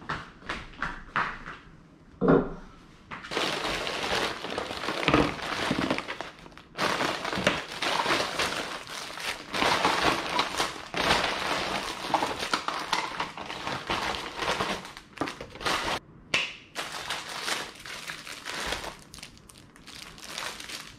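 Crinkly packaging being handled: a dense rustling and crinkling with small knocks mixed in, from about three seconds in until about sixteen seconds, then quieter scattered rustles.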